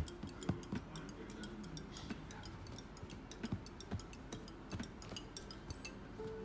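Quiet background music with light, irregular ticking percussion and soft held notes.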